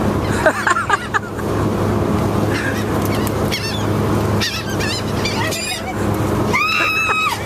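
Gulls calling overhead: several short, arching cries, with the loudest, longest call near the end. A steady low drone from the ferry's engine runs underneath.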